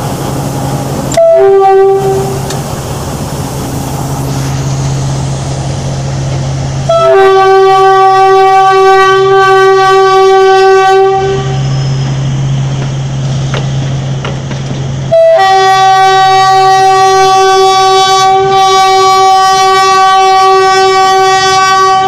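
PNR DMT train sounding its horn three times: a short blast about a second in, a long blast of about four seconds from around seven seconds, and another long blast starting about fifteen seconds in. Each blast opens with a brief higher note before it settles on a steady chord. Between the blasts a low steady engine drone continues.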